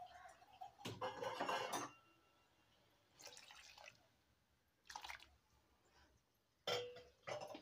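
Water poured in several splashes into a clay pot of cooked toor dal, the longest and loudest pour about a second in.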